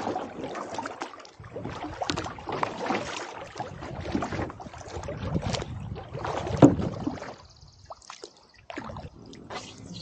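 Canoe paddle strokes in lake water: repeated dips and pulls with splashing and dripping. The loudest stroke comes about two-thirds of the way in, after which the sounds grow quieter and sparser.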